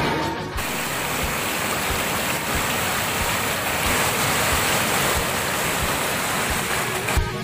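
Whitewater rapids rushing over boulders close to the microphone: a steady, dense wash of water noise.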